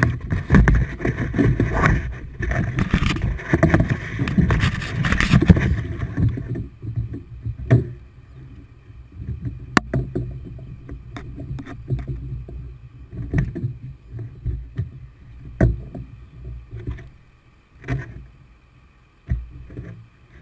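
Wind buffeting and handling noise on a GoPro strapped to a cargo bundle: heavy rumble for about the first six seconds, then a quieter low rumble broken by scattered bumps and knocks.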